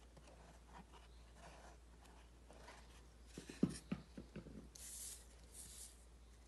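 Faint craft-table handling sounds: soft rustling, then a quick cluster of light knocks a little past halfway as a plastic glue bottle is set down on a wooden table, then a papery rubbing as a glued cardboard toilet-paper roll is pressed onto a sheet of construction paper.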